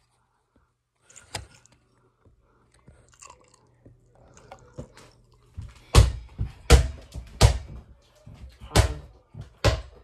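A run of five loud, sharp thumps in the second half, spaced unevenly over about four seconds.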